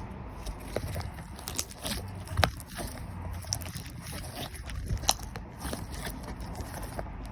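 Slime being pressed and worked by hand, giving irregular crackling and popping clicks; the sharpest pop comes about two and a half seconds in.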